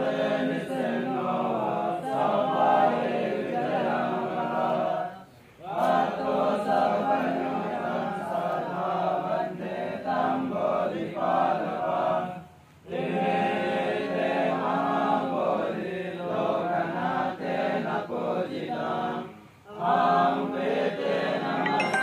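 A group of male voices chanting together in unison, Buddhist chanting by monks. The chant runs in long phrases of about seven seconds, broken by three short pauses.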